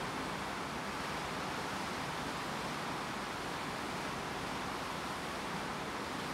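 Steady, even rushing of wind and water heard from aboard a moving ship, with no change in level.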